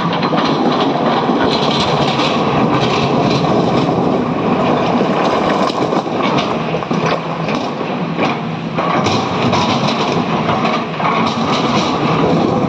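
Diesel excavator working hard as it loads a tipper truck: a steady engine drone with clattering and knocking of the load and machinery over it.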